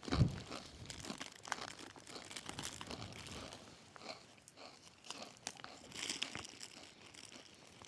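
Faint, irregular crunching and crinkly rustling of a hiker on the move: steps on stony ground and the rustle of windproof clothing close to the microphone.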